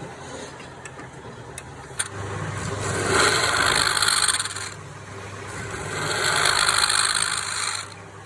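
A power tool motor comes on with a click about two seconds in and runs with a steady low hum, while two long rasping passes, each about two seconds, grind against the palm wood.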